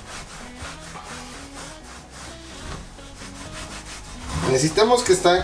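A wet cast iron grill being rubbed dry by hand after washing: a run of repeated rubbing strokes.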